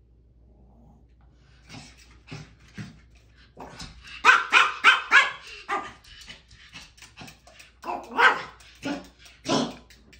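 Pomeranian barking and yipping excitedly in short, sharp calls, starting about two seconds in, loudest in a quick run of barks around the middle, with another burst near the end.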